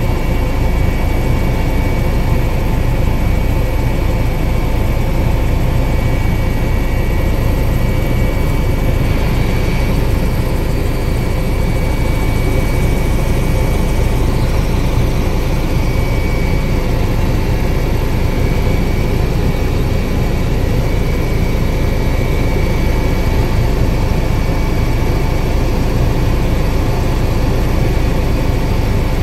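Helicopter in steady cruise heard from inside the cockpit: a loud, even rotor and engine drone with fast low pulsing and a thin steady high whine, unchanging throughout.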